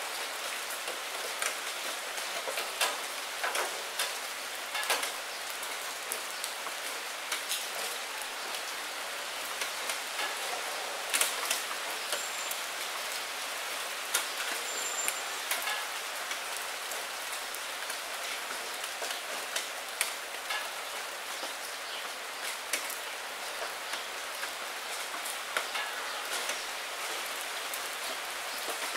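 Steady rain on window glass: an even hiss with frequent, irregular sharp taps of single drops striking.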